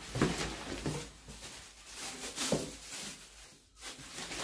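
Unboxing handling noise: vacuum parts and packaging being taken out and moved, a few short knocks and rustles, the loudest about a quarter-second in and again about two and a half seconds in.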